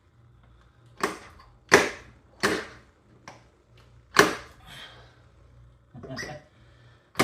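Hammer blows driving a new CV axle in to seat its greased retaining clip: about five sharp knocks at uneven intervals, with a few lighter taps between, until the clip snaps home.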